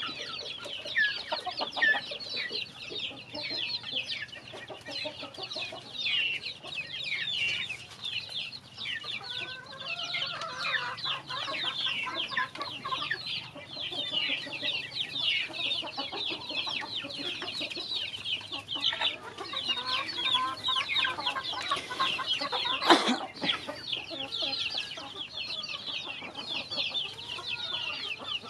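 A crowd of young chicks peeping nonstop while they feed, many short high cheeps overlapping, with lower clucks now and then from older chickens. One sharp, louder sound stands out about three-quarters of the way through.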